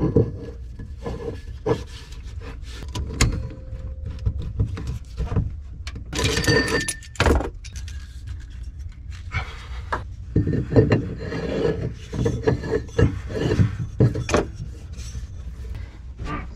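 Bronze pipe fittings being handled and screwed onto an exhaust through-hull: irregular scraping, rubbing and clinking of metal on metal and against wood, over a steady low rumble.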